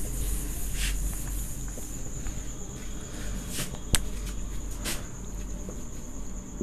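Duster wiping a whiteboard in a few short swishes, with a single sharp click about four seconds in. A steady high-pitched whine and a low hum run underneath.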